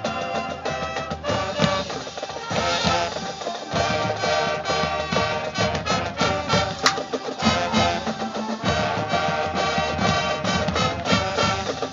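High school marching band playing a brass-led arrangement.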